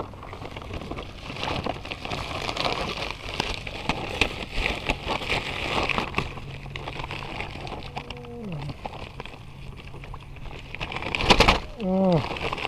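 Plastic bag crinkling and rustling as it is handled, a dense crackle, with one loud thump near the end.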